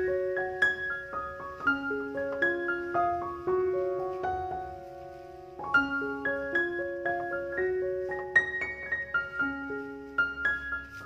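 Background piano music: a gentle melody of single ringing notes over held chords, at an unhurried pace.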